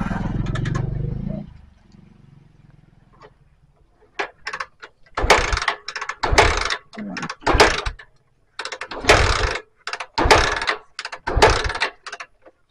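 Bajaj Pulsar 150 engine being turned over by its electric starter; the cranking cuts off about a second and a half in. From about four seconds in comes a run of sharp ratcheting clatters, roughly once a second, as the kick-starter is worked. The engine turns over freely without compression, which the mechanic puts down to a failed inlet valve.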